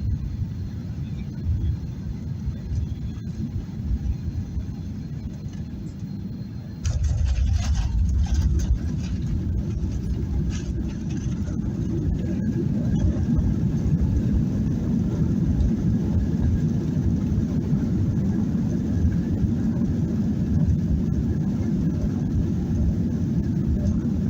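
Cabin noise of a Boeing 737-800 rolling on the ground just after landing: a steady low rumble of engines and wheels. About seven seconds in it suddenly gets louder, with a few seconds of rattling, and then stays at the louder level.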